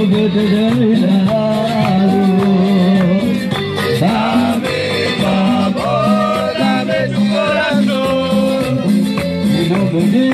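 Amplified Latin American-style music with a steady bass line, and a man singing into a handheld microphone over it.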